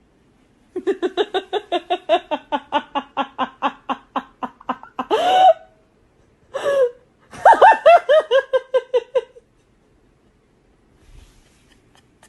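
A person laughing hard in a long run of rapid ha-ha bursts, with gasping breaths about five and seven seconds in, then another burst of laughter that stops about nine seconds in.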